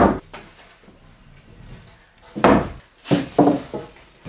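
Wooden wall studs being set down on a plywood floor, knocking and clattering on the wood: one knock at the start, then a cluster of knocks from about two and a half seconds in.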